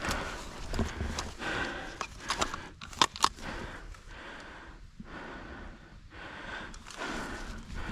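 Footsteps and rustling of a person moving through forest undergrowth, with two sharp snaps close together about three seconds in.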